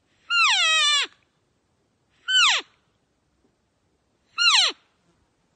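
Three nasal, high-pitched cow-elk mews, each sliding steeply down in pitch: a longer first call, then two shorter ones about two seconds apart.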